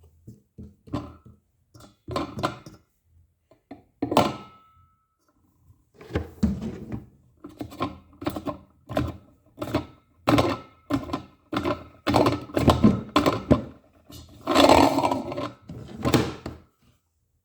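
A series of irregular knocks and thuds, growing denser about six seconds in, with the loudest cluster near the end.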